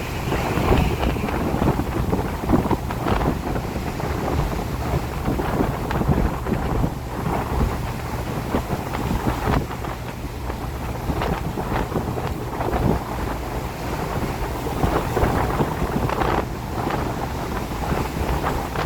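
Wind gusting in uneven swells during rain, with a low rumble of wind buffeting the microphone.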